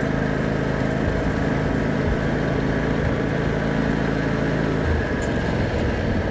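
John Deere X320 riding mower engine running steadily as the throttle is worked through its range, with the engine note changing about five seconds in. It runs cleanly now that a new engine control module has cured it not staying running.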